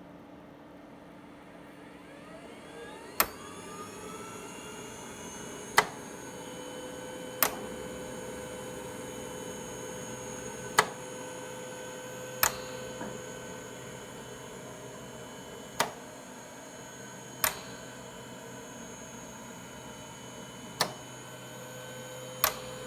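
VentaMAX mechanical ventilator cycling: a motor whine rises about two seconds in and then runs steadily. Sharp clicks come in pairs about a second and a half apart, one pair roughly every five seconds, marking the start and end of each delivered breath.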